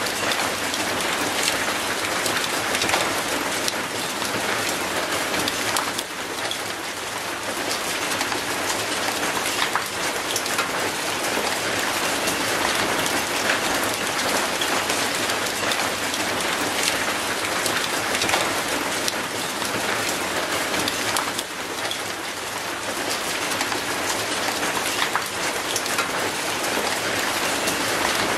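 Steady rain falling on concrete and an old rusty metal gate: an even hiss of rain with many sharp ticks of single drops striking.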